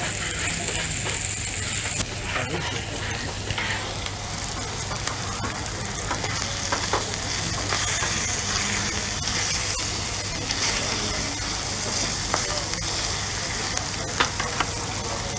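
Pieces of meat frying on a hot flat-top griddle (plancha): a steady sizzling hiss, with a few short clicks through it.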